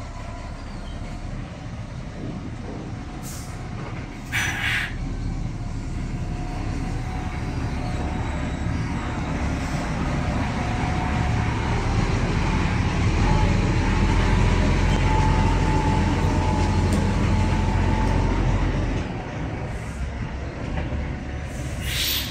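A HOWO vacuum tank truck's diesel engine running steadily. It grows louder through the middle stretch and eases back about 19 seconds in, with a short hiss about four and a half seconds in and another just before the end.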